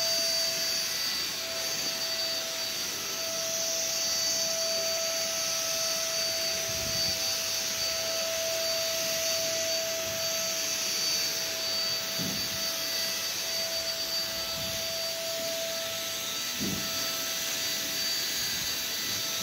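Handheld electric spray gun running steadily while spraying: a constant motor whine over a hiss.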